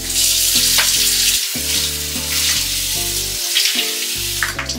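A loud steady hiss, like sizzling, that cuts off near the end, over background music.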